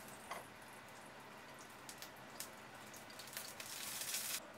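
Hot ghee faintly sizzling and crackling in a frying pan where a fish has just been shallow-fried; the crackle grows denser near the end.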